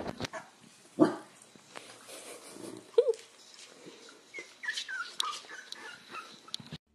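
A dog, presumably a Pembroke Welsh corgi, giving short barks and high, falling whines, with the loudest sounds about one and three seconds in.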